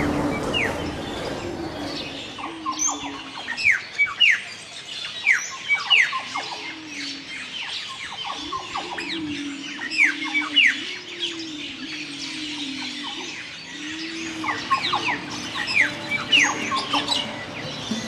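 Many birds chirping and squawking together, a dense chatter of short, sharp, down-slurred calls, with a low sliding sound repeating underneath for most of the time.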